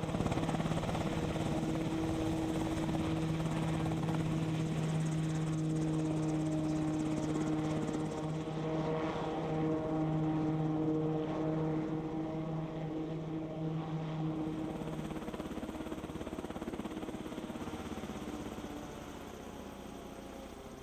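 Piasecki X-49A SpeedHawk compound helicopter running, a steady rotor-and-turbine sound with a strong, even low hum in it, fading away over the last few seconds.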